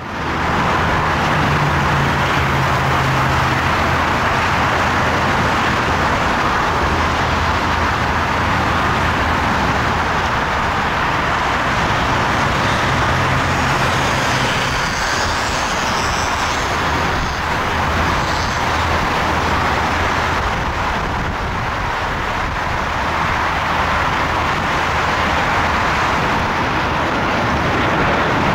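Steady jet roar of a Boeing 737-800 airliner on final approach, with a faint high engine whine about halfway through, mixed with continuous road-traffic noise.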